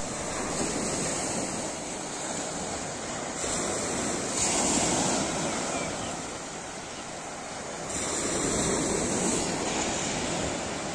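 Sea surf breaking and washing up a sandy beach, a steady rush that swells and fades twice.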